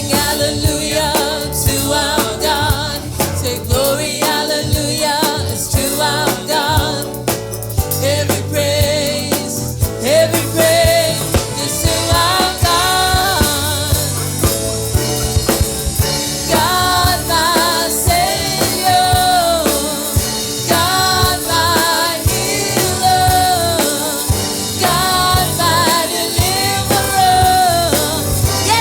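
Gospel praise song with a drum kit and singing voices.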